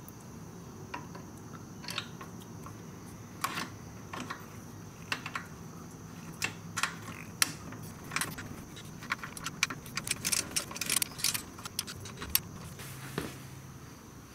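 Metal bolts and hand tools clinking and clicking at irregular intervals as bolts are threaded back into the motorcycle by hand and run in, with a dense flurry of quick clicks about ten seconds in.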